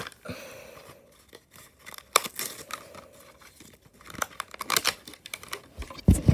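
Cardboard backing tearing and a clear plastic blister crinkling and crackling as a toy car is opened out of its retail package by hand, in irregular bursts of rustling and clicks. A dull thump near the end.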